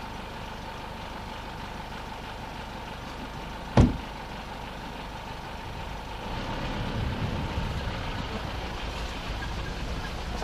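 Mitsubishi Pajero running on an off-road track, a steady low engine and road rumble. One sharp knock about four seconds in, and the rumble grows louder from about six seconds on.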